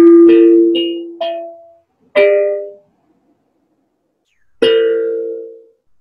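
Steel tongue drum struck with a mallet, its notes ringing and fading: a quick run of four notes in the first second and a half, one more at about two seconds, then a pause before a single note near the end rings out.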